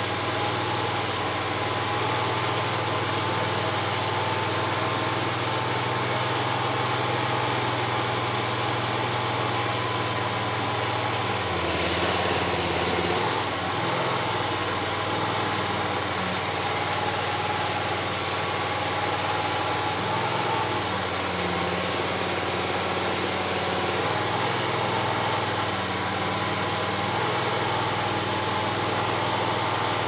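Loncin engine of a homemade mini skid steer loader running steadily, its note shifting about twelve seconds in and again around twenty seconds in as the hydraulic drive moves the chassis.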